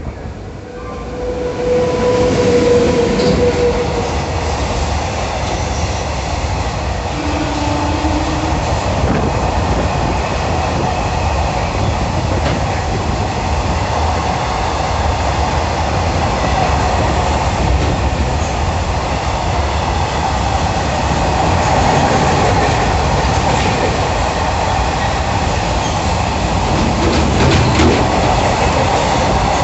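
Express train passing at speed close by: a loud, steady rush of wheel and coach noise with the clickety-clack of wheels over rail joints, building up sharply about a second in as the train reaches the crossing.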